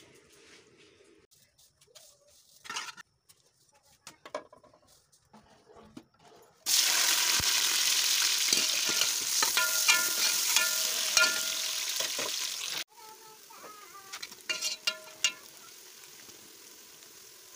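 Sliced onions frying in hot oil in a metal pot: a loud, steady sizzle that starts suddenly about a third of the way in and cuts off abruptly, then returns quieter with a metal ladle scraping the pot as the onions are stirred. Before the frying, faint rustling and clicking of dry rice grains being sifted by hand.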